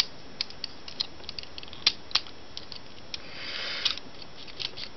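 Hard plastic parts of a Transformers Grimlock figure clicking and snapping as its joints are folded by hand: irregular small clicks, two louder snaps about two seconds in, and a brief scraping rub of plastic on plastic a little after three seconds.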